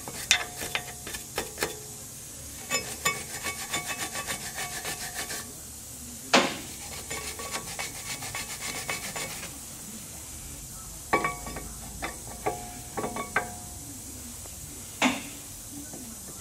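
Hand wire brush scrubbing the pad slide surfaces of a 1998 Ford Taurus rear brake caliper bracket clean so the pads can slide freely. It goes in quick back-and-forth strokes in bursts of a few seconds, with the steel ringing faintly. A few sharper metal clinks come in between the bursts.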